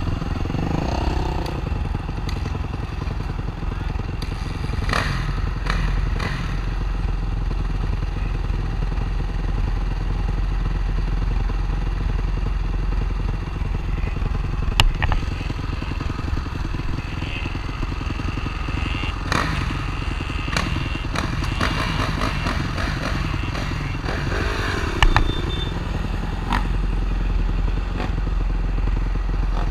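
Motocross dirt bike engine running steadily, with a few sharp knocks about halfway through and near the end.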